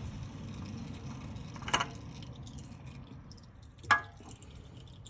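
Old oil filter being twisted off a Honda Accord by hand: two light metallic clinks about two seconds apart, the second louder with a short ring, over a low steady background.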